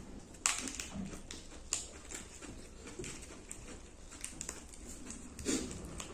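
Quiet sounds of eating by hand from steel plates: a few sharp clicks and taps, three in the first two seconds and another near the end, over soft handling of food and lettuce leaves.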